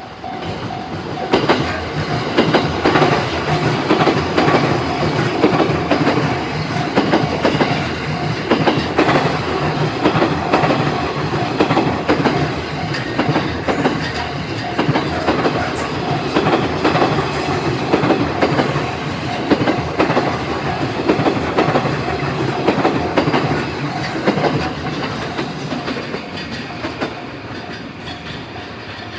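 A long JR commuter electric multiple-unit train passing through a level crossing, its wheels clattering rhythmically over the rail joints; the noise eases off near the end as the last cars go by. The crossing's warning bell rings in a repeating tone, heard at the start and again as the train clears.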